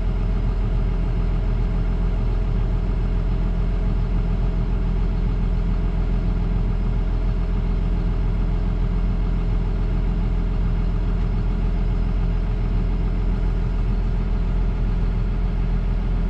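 John Deere S540 combine harvester running steadily while harvesting corn: a constant engine and machinery drone.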